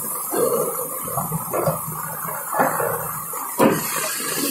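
Muddy floodwater and debris rushing over a rubble-choked road, with a single sharp knock about three and a half seconds in.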